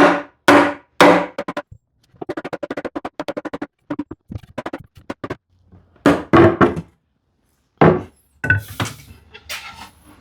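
Hard wooden knocks with a short ring as a tight hand-cut dovetail joint is tapped apart, a few in the first second and more about six seconds in, with a fast run of small clicks and rattles in between.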